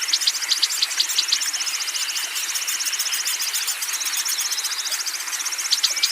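Songbirds singing in rapid, high trills, phrase after phrase with short gaps, over a steady hiss.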